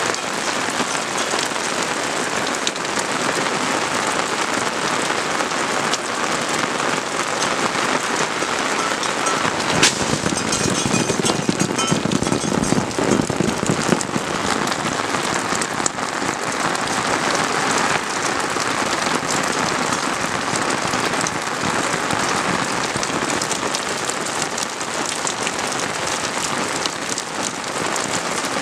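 Steady rain falling, a dense even hiss with scattered sharp drop ticks and a louder knock about ten seconds in.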